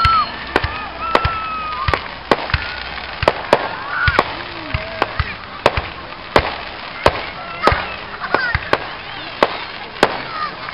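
Fireworks going off: a string of sharp pops, two or three a second, with a high whistle fading out at the start and another short whistle about a second in.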